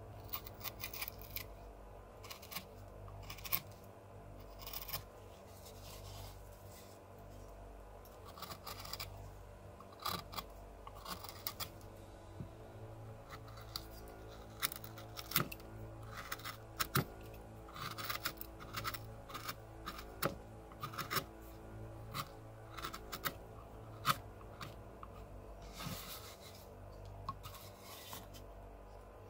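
Hand carving gouge cutting into cottonwood bark: short, irregular slicing cuts, often several in quick succession, over a faint steady hum.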